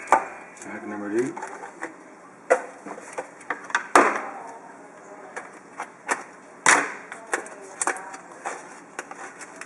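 Cardboard trading-card pack boxes being handled and opened by hand: rustling with sharp taps and clicks, the loudest about four seconds in and again near seven seconds.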